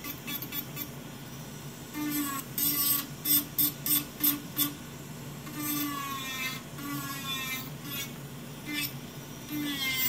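Electric nail file (e-file) bit whirring and grinding against an acrylic nail, its whine sliding in pitch as it bears on the nail, with several short harsh grinding strokes between about two and five seconds in. A steady low hum from the Nova Flair II nail dust collector's fan runs underneath.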